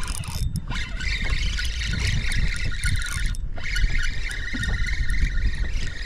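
Wind buffeting the microphone in a steady low rumble, over the whirr of a spinning reel being cranked while a hooked redfish is fought on the line.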